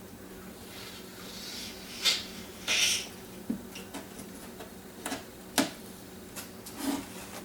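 Hand work at a workbench: scattered sharp knocks and clicks, the loudest about two seconds in and again past five seconds, with a couple of brief rasping noises, as tools and lumber are handled.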